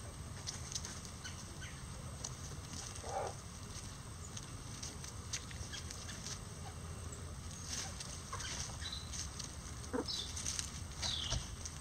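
Bantam chickens giving short clucks and a few high, falling chirps near the end, over scattered light clicks and rustles of pecking and scratching in dry leaves.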